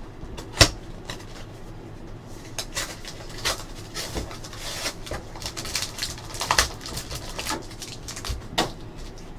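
A cardboard trading-card box and its wrapper being opened by hand: irregular crackling, crinkling and tearing with scattered sharp clicks, the sharpest about half a second in and another cluster around six and a half seconds.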